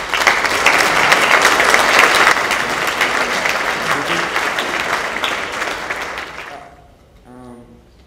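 Audience applauding, with dense clapping that dies away near the end.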